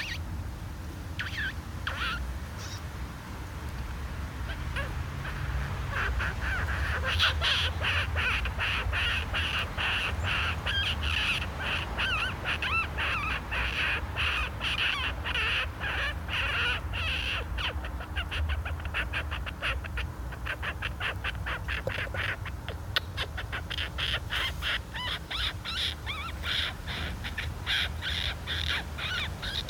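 Harsh animal calls repeated in a rapid series, picking up about six seconds in and continuing, over a steady low rumble.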